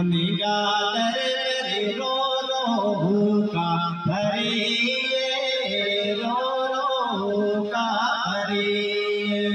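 A man singing a naat (Islamic devotional song) in Gujari, in long, wavering, gliding phrases, accompanied by an electronic keyboard holding steady sustained notes beneath the voice.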